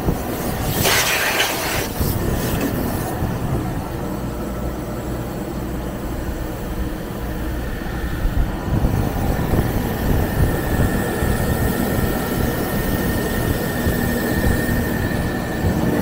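Wheel-cutting lathe running as it cuts a wheel: a steady mechanical rumble, a short hiss about a second in, and a thin high whine from about the middle on.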